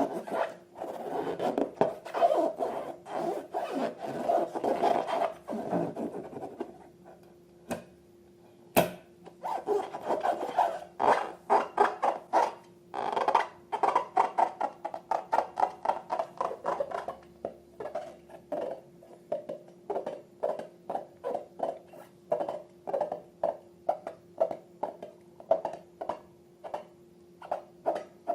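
Slime being worked by hand: a dense wet rubbing for the first several seconds, then a long run of short squishes, about two a second, over a faint steady hum.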